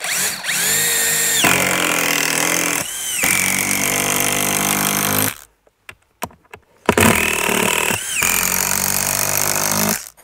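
A cordless drill-driver drives a long screw through a wooden facade batten. The motor whine comes in two long runs, the first about five seconds and the second about three, with a few short clicks between them. The pitch dips briefly once during each run.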